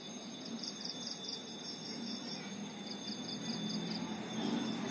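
Crickets chirping, a high pulsed trill of about five pulses a second that stops briefly about halfway through and then resumes.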